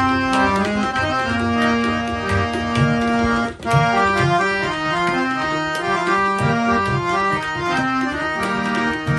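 Rina Company two-line harmonium (two banks of reeds, bass coupler) playing a melody in held, changing notes, accompanied by tabla strokes. The sound breaks off for a split second about three and a half seconds in.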